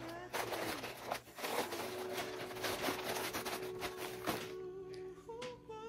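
Handling noise of sneakers and a cardboard shoebox: light rustles and taps over a faint steady hum, with a short pitched sound near the end.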